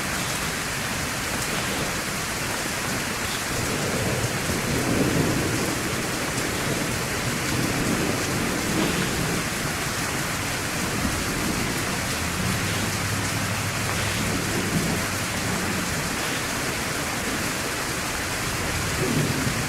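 Steady rain with low rumbles of thunder swelling up now and then.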